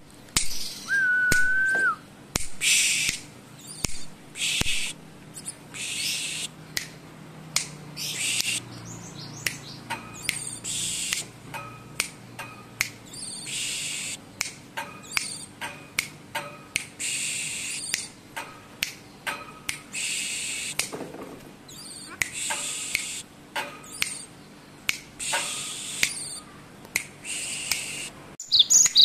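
Caged cinereous tit (gelatik batu) singing a varied song: short bursts of high, sharp notes repeated every second or so, with a clear level whistle about a second in.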